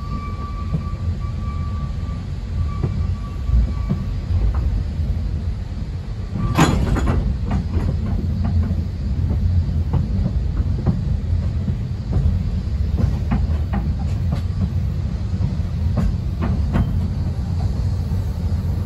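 Ikawa Line passenger train running, heard from inside the carriage. There is a steady low rumble and a high steady tone in the first four seconds. A sharp clank comes about six and a half seconds in, followed by scattered clicks from the wheels.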